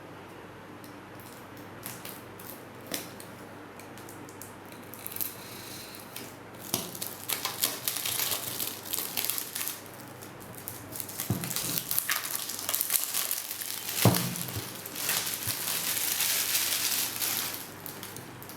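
Packaging of a phone box being unwrapped: plastic wrap crinkling and tearing in several stretches, with light handling clicks and one sharper knock about two thirds of the way through.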